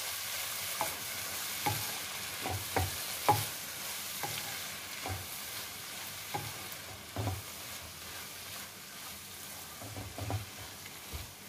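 Spatula stirring a vegetable and paneer filling frying in a nonstick wok: a steady sizzle with irregular scrapes and knocks of the spatula against the pan, about one a second.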